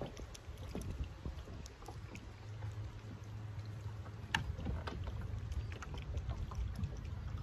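Small waves lapping against a boat's hull, with a low rumble and scattered faint ticks. One sharper click comes about four seconds in.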